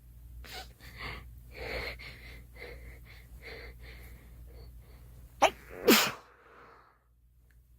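A girl sneezing: a string of short, catching breaths over several seconds, then two sneezes in quick succession about five and a half seconds in, the second the louder.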